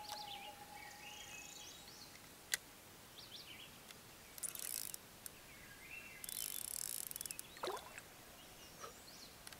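Birds calling and singing over a quiet outdoor background: short chirps and two dense trills, with a single sharp click about two and a half seconds in.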